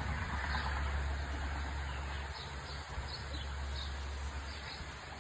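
Outdoor ambience: a steady low rumble with faint bird chirps scattered through it.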